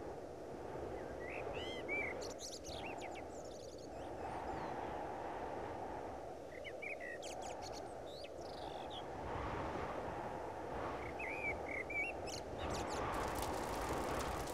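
Outdoor nature ambience: a steady low rushing like wind, with small birds chirping in three short groups of calls. A fast, high ticking comes in near the end.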